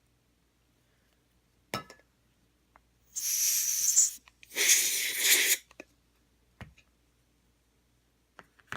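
Two hissing blasts of canned compressed air, about a second each, blowing hair and debris off a robot vacuum's caster wheel, with a sharp click before them and another near the end.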